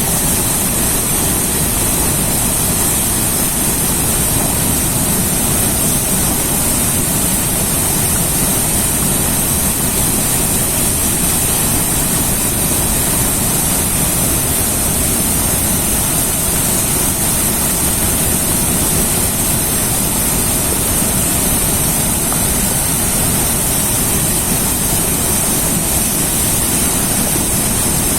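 River water rushing steadily: a constant rumble with a bright hiss on top and no break or change.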